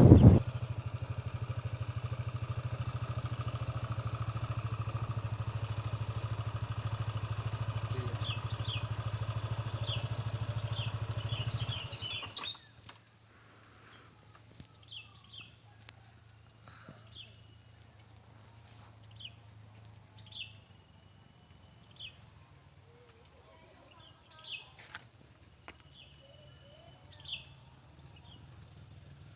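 Motorcycle engine idling steadily, then switched off about twelve seconds in. Birds chirp in short repeated calls, and after the engine stops they carry on over a near-quiet background with a few faint clicks.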